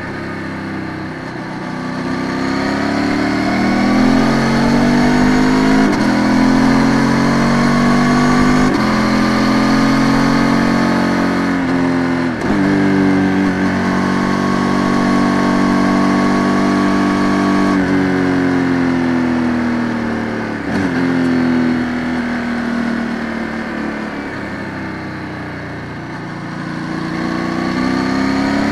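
Ducati Multistrada 950 S's 937 cc L-twin engine pulling hard through the gears, its pitch climbing and dropping back at three upshifts in the first dozen seconds. It then holds a steady note, falls as the throttle closes with a downshift, and climbs again near the end.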